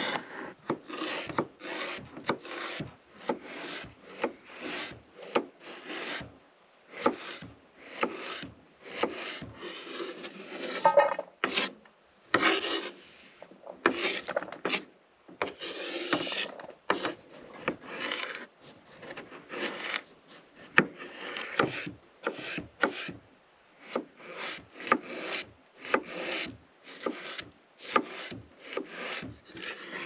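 Chef's knife cutting a potato on a bamboo cutting board: a steady run of short knocks of the blade on the wood, about two a second, with the scrape of the blade through the potato between them.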